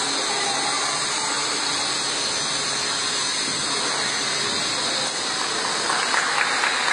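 Steady, even hiss of a sports hall's background noise during a badminton rally, with a few short sharp sounds about six seconds in.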